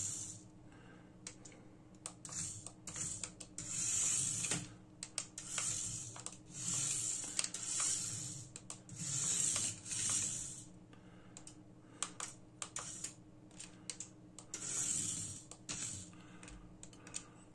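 Small electric motor of a 1:67-scale mini RC car whirring in repeated bursts of about a second as it is driven, with many light, sharp clicks between the bursts.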